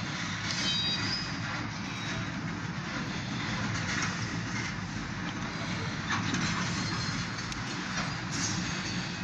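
Freight train of covered grain hopper cars rolling past: a steady rumble and clatter of steel wheels on the rails, with a brief faint high wheel squeal near the start.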